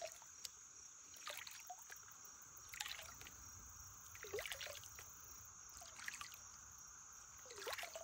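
Plastic gold pan being swished and dipped in shallow creek water during gold panning: faint sloshing splashes about every second and a half.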